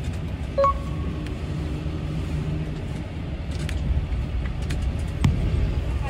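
Cabin noise inside a moving bus: a steady low rumble of engine and road, with small rattles and knocks throughout. A short electronic beep sounds about half a second in, and a sharper knock near the end.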